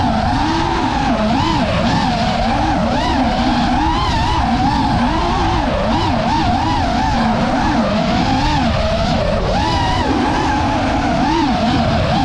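FPV quadcopter's electric motors and propellers whining, the pitch rising and falling constantly with quick throttle changes. Wind rumbles on the onboard camera's microphone in gusty conditions.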